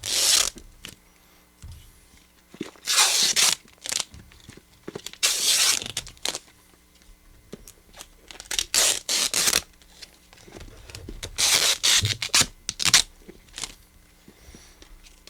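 Duct tape being ripped off a wrapped box in a series of separate pulls, each a short rasping tear, about every two to three seconds with short pauses between.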